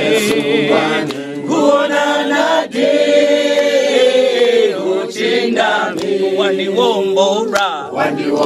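A small group of men singing together unaccompanied, with long held notes.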